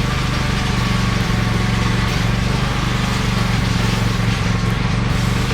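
Steady, unbroken hum of a running woodshop machine's motor, with no change in pitch or level.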